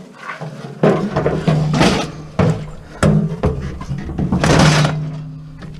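Scrap items knocking and clattering as they are handled and loaded, with several sharp thunks and a longer scraping rattle near the end, over a steady low hum.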